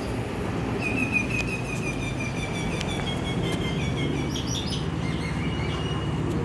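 A bird chirping in a quick run of short repeated notes, over a steady low rumble.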